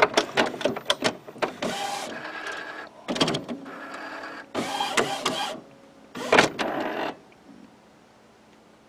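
Epson WorkForce inkjet printer's mechanism running: a run of clicks and knocks, then four short whirring runs as the print-head carriage travels to the cartridge change position. It stops about seven seconds in.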